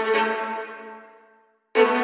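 Background music: a sustained bowed-string chord with a quick pulsing rhythm, fading out over about a second and a half, then a new chord cutting in abruptly near the end.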